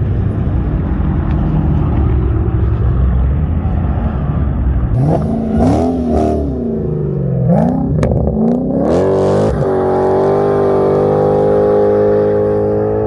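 Car engine running with a steady low rumble, then about five seconds in revved up and down several times, and from about ten seconds held at high revs with a steady, slightly rising note.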